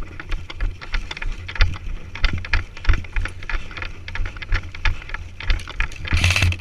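Airsoft guns firing: irregular sharp snapping shots, several a second, over a low rumble.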